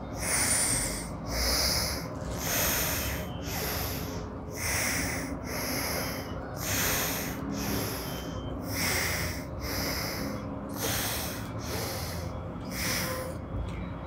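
A person breathing forcefully in and out through the nose, one nostril at a time, in alternate-nostril breathing (anulom vilom pranayama). The breaths come as a steady run of nasal rushes, roughly one a second.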